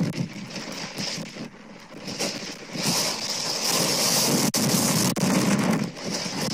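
Gusty tropical-storm wind buffeting the nest camera's microphone, with a rushing noise that gets louder and stays strong from about three seconds in.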